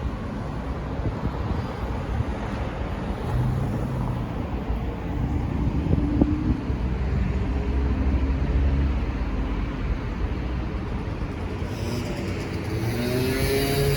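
City road traffic: cars passing with engines running over a steady rush of tyre and street noise, and an engine rising in pitch near the end as a vehicle accelerates.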